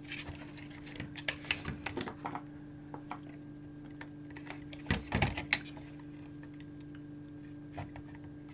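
Scattered small clicks and taps of connectors and wire leads being handled and pushed into place on a workbench, with a louder cluster of knocks about halfway through, over a steady low hum.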